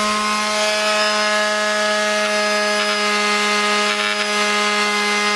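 TackLife PMS02B mouse detail sander running steadily, its pad oscillating with a constant hum, while 80-grit sandpaper rasps over a painted surface.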